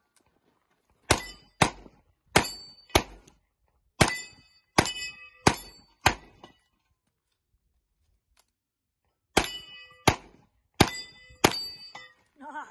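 Revolver shots fired in quick pairs, each with a brief metallic ring: eight shots, a pause of about three seconds, then four more.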